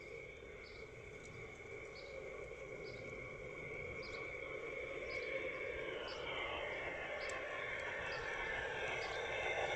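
Bachmann garden-railway Mallet model steam locomotive running on its track, its motor, gears and wheels growing steadily louder as it approaches. A faint short high chirp repeats about once a second.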